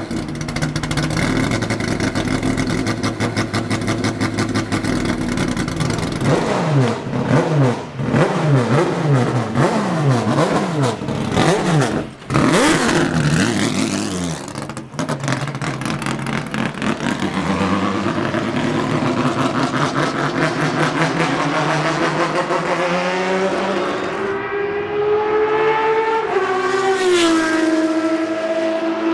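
Racing car engines running hard, the pitch rising and falling again and again as the revs climb and drop. Near the end a single engine's note climbs more steadily.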